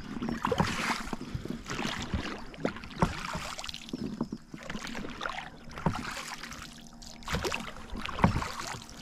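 Oars of an inflatable rowboat dipping and pulling through the water in repeated strokes, with splashes and sharp knocks. The boat is being rowed against the pull of a stretched rubber fishing line under heavy tension.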